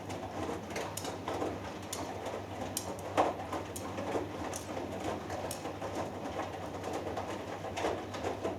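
Hoover Dynamic Next front-loading washing machine turning its drum, wet laundry and water sloshing and flopping with soft irregular thuds over the motor's low hum; the drum stops at the very end.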